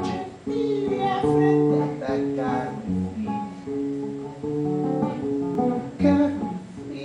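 Solo acoustic guitar playing chords that are picked and left to ring, moving to a new chord about every second.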